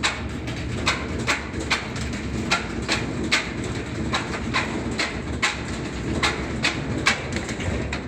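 2005 Whirlpool washing machine spinning off balance, its drum knocking about two and a half times a second over a low rumble: the load is unbalanced. The sound drops away at the very end.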